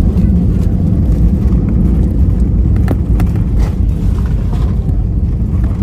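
Loud, steady low rumble of an Airbus A320 heard from inside the passenger cabin around landing, with a few brief knocks and rattles.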